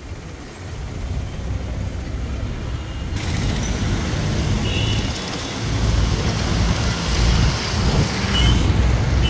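Road and traffic noise from the open top deck of a moving double-decker bus: steady engine rumble with a hiss of tyres and wind that grows louder about three seconds in. A few brief high beeps from traffic horns in the second half.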